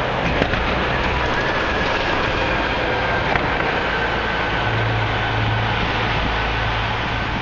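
Steady mechanical rumble of heavy city traffic and construction machinery, with a faint high whine that slowly drops in pitch through the middle.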